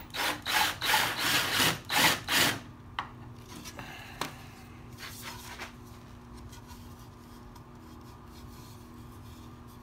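Quick, rough scraping strokes on black ABS plastic pipe, about six of them in the first two and a half seconds, then two light clicks and a faint steady hum.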